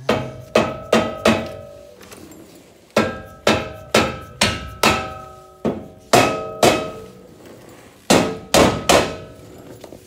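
A short-handled sledge hammer striking a square-tube steel subframe connector up against a car's unibody floor pan to seat it tight before welding. About fifteen ringing metal blows come in four quick groups of three to five.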